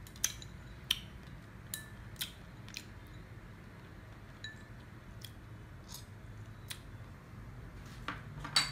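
Chopsticks clicking against a small ceramic bowl in a run of sharp clicks, about two a second at first and then sparser. A louder cluster of clinks comes near the end.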